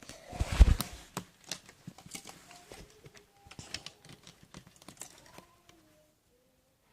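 Plastic Lego pieces clicking and clattering as they are handled and fitted onto the build, with one heavy bump about half a second in. The clicking stops about five and a half seconds in.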